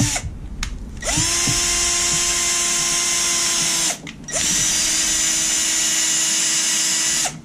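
Ridgid cordless drill spinning a hole-cleaning brush in a clogged threaded bolt hole of a Jeep 4.0 inline-six engine block, with a steady motor whine. It stops just after the start, spins back up about a second in, pauses briefly around four seconds, then runs again until near the end.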